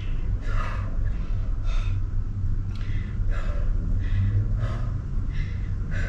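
A woman's hard breathing from the effort of a dumbbell workout: short, sharp breaths about one to two a second. A low steady rumble runs underneath.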